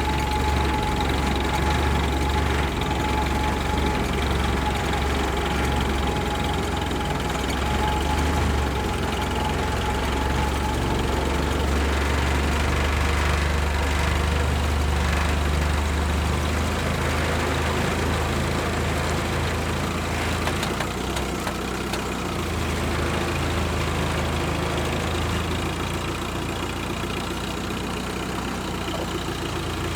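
All-terrain vehicle engine running steadily with a deep drone, and a thin steady whine over it for the first ten seconds or so.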